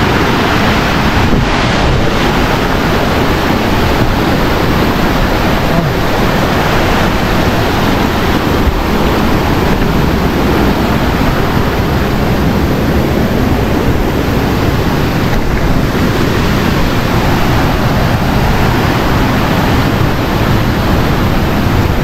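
Steady, loud rush of water from a waterfall, an even roar with no let-up.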